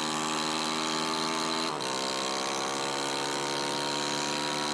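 Small engine on a pink toy car running hard at high, steady revs while driving, with a brief break and a slight drop in pitch about two seconds in.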